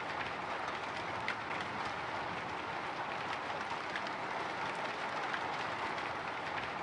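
Light drizzle falling on a window: a steady rain hiss with scattered faint ticks of single drops.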